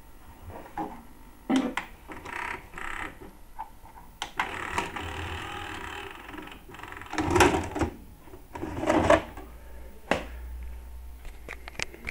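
Clicks and clunks from a VCR's front buttons and tape mechanism, with a brief whirring stretch about halfway through and two louder knocks after it, as the TDK head-cleaning tape is handled in the machine.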